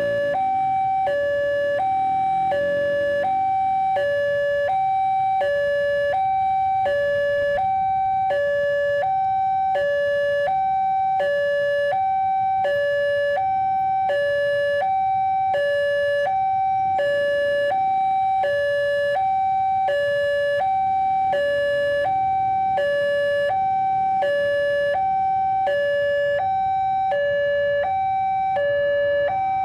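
Railway level-crossing warning alarm sounding from the loudspeaker on the crossing pole, switching back and forth between a higher and a lower tone without pause: the barrier is down and a commuter train is about to pass.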